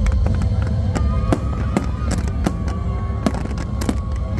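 Aerial fireworks going off in quick, irregular succession: many sharp bangs and cracks over a steady low rumble.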